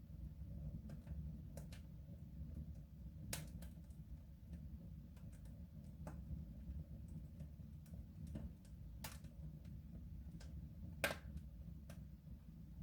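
Wood fire burning in a soapstone stove: irregular, sharp crackles and pops over a low, steady rumble, with one louder pop about eleven seconds in.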